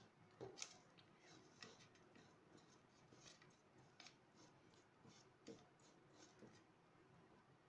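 Faint scratchy strokes and light irregular taps of a flat paintbrush spreading Mod Podge over a plastic bottle, with the bottle turned in the hand.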